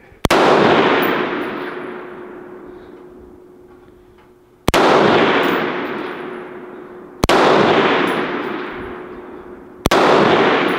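Four rifle shots from an AR-style rifle firing 5.56 rounds, unevenly spaced: one at the start, then three more in the second half about two and a half seconds apart. Each sharp crack echoes off over a few seconds.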